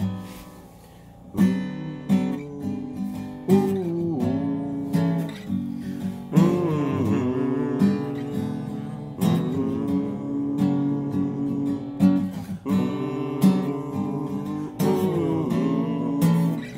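Music: a strummed acoustic guitar, with a singing voice coming in a few seconds in.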